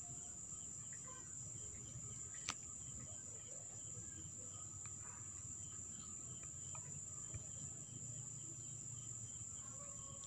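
Faint, steady high-pitched chirring of crickets, with a single sharp click about two and a half seconds in.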